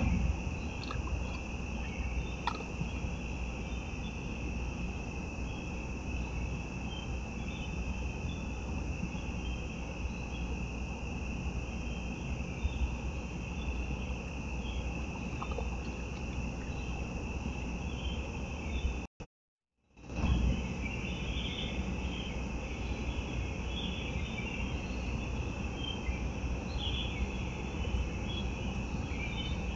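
Crickets trilling in a steady, continuous chorus, over a low background hiss, with scattered faint ticks. The sound cuts out for about a second around two-thirds of the way through, then resumes.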